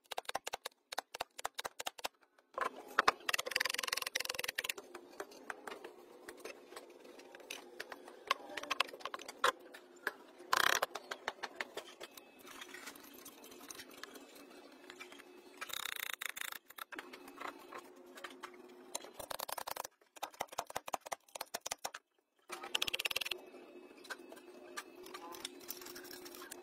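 Clicks, scrapes and knocks of hand tools and metal parts as the end cover of a restored electric motor housing is cleaned and fitted. The sounds come in short irregular bursts over a faint steady hum.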